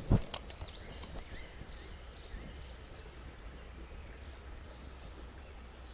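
Small birds chirping in short high notes over a steady low outdoor rumble, with a heavy thump right at the start.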